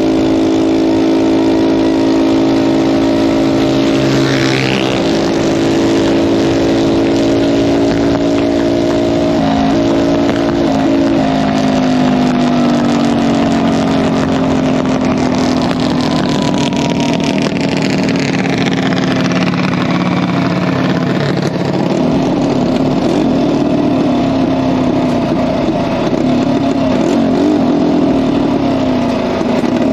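Half-scale junior dragster's small engine running as the car rolls down the strip. Its pitch holds at first, drops gradually as the car slows, and turns unsteady at low speed in the last few seconds.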